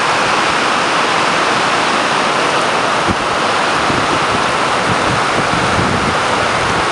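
Heavy rain pouring down in a steady, loud hiss, with one faint knock about three seconds in.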